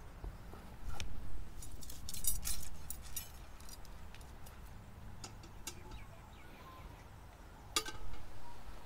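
Scattered metal clinks and knocks as a cake tin is set into a cast-iron camp oven and the oven is handled. There is a quick cluster of clinks about two seconds in and a sharper knock near the end.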